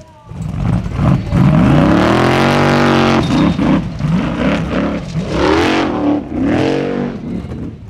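Engine of a high-powered Formula Offroad hill-climb buggy revving hard, its pitch rising and falling repeatedly as it claws up a loose dirt slope with wheels spinning.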